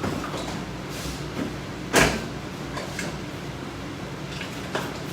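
A few short clacks and knocks over a steady low hum. The loudest clack comes about two seconds in, and fainter ones follow later.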